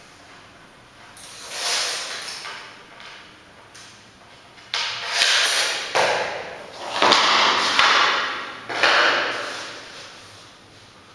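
Laminate flooring planks scraping and sliding against each other and the floor as they are handled, about five separate rasping slides, each about a second long.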